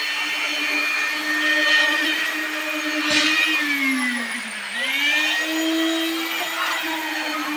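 Concrete needle vibrator's motor running with a steady whine. Its pitch sags briefly about four and a half seconds in and then recovers. There is a short knock near three seconds.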